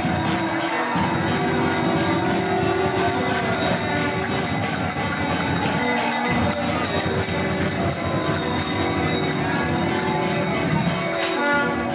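Devotional kirtan music: sung phrases over the steady jingling of hand cymbals.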